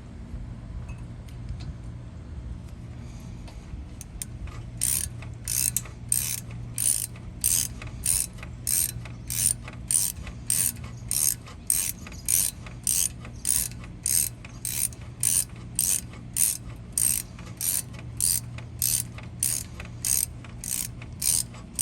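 Hand socket ratchet being cranked, clicking in an even rhythm of about one and a half strokes a second from about four seconds in, as it runs down a brake caliper pin bolt before it is torqued.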